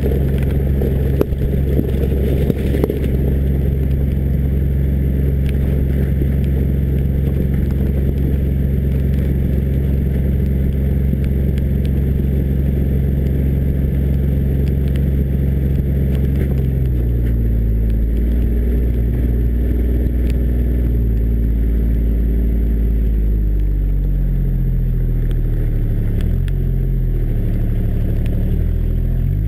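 John Deere Gator 855D's three-cylinder diesel engine running under load at a steady speed, with the tyre spraying wet gravel in the first few seconds. From about 17 seconds in, the engine speed rises and falls repeatedly as the throttle is worked.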